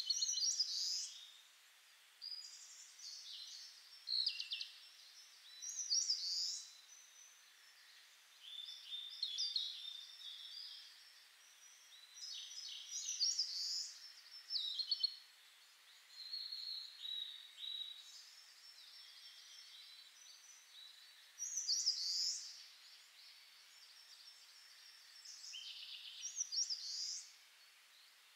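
Songbird singing in short chirping phrases every few seconds, over a faint steady hiss.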